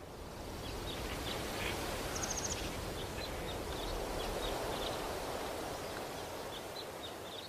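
Outdoor ambient noise with faint, scattered bird chirps and a brief quick trill about two seconds in, swelling in over the first second.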